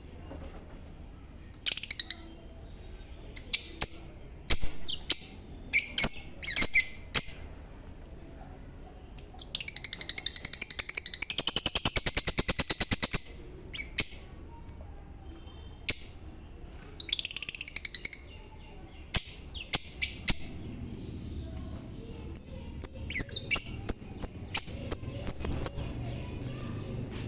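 Lovebirds calling in short, high-pitched chirps that come in bursts. A fast run of rapidly repeated notes lasts about three and a half seconds, around ten seconds in, and is the loudest part.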